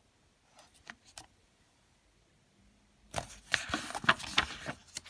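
Paper page of a picture book being turned: a few faint ticks, then from about three seconds in two seconds of rustling and crackling as the page is flipped over.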